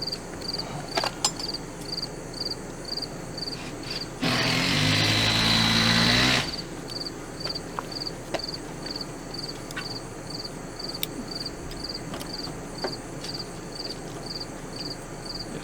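Crickets chirping steadily, about two chirps a second, with scattered light clicks. About four seconds in, a louder motor sound with a low hum runs for about two seconds and cuts off abruptly.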